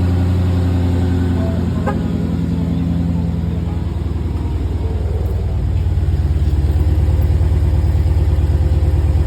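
Dodge Hellcat's supercharged V8 idling with a deep, steady rumble; about six seconds in it grows louder with a faster, choppier pulse.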